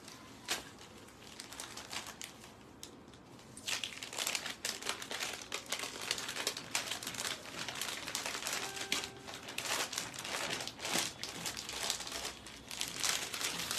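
Crinkling and rustling of a saree being unfolded and handled. It is faint at first, then a busy run of crinkling from about four seconds in.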